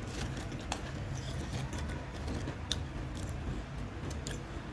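A few sharp, scattered crackles of potato chips being taken from a canister and eaten, over a steady low hum.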